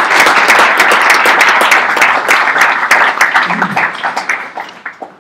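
Audience and panel applauding, with many hand claps close to the microphone. It thins out and dies away in the last second or so.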